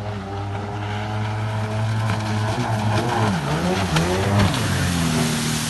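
Sea-Doo XP 720 personal watercraft's two-stroke twin-cylinder engine idling steadily, then revved up and down in several quick blips from about halfway through.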